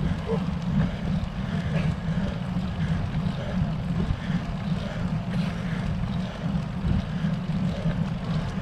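Steady low rumble of wind and road noise on a bicycle-mounted camera's microphone while the bike climbs on tarmac.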